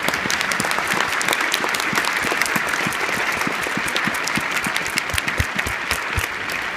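Stadium crowd applauding, a dense patter of many hands clapping, easing off slightly near the end.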